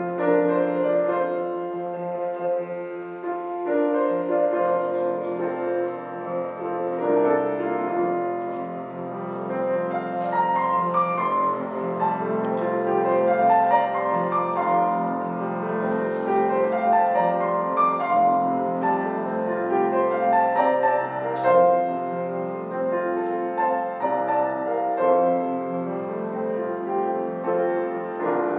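Grand piano played solo: a continuous piece of sustained chords under a moving melody line.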